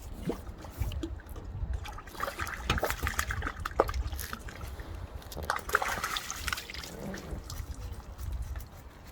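Water splashing and trickling in two bursts, about two seconds in and again around six seconds, over a steady low rumble.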